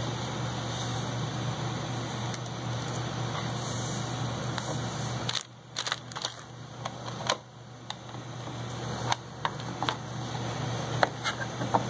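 Rustling and crinkling of a soft wrapping sheet as hands unwrap a small device, over a steady low hum. About five seconds in the sound drops off suddenly, then scattered crinkles and clicks follow as plastic-bagged parts and the box are handled.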